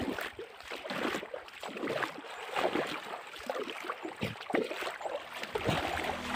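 Irregular splashing and sloshing of water in a shallow, muddy river.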